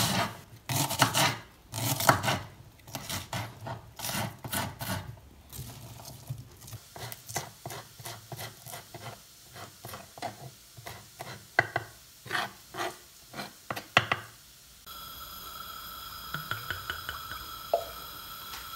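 Kitchen knife chopping on a wooden cutting board. Heavier strokes through an onion come first, then quicker, lighter chops through green chillies. About three-quarters of the way in the chopping stops and a steady hum with a few light ticks takes over.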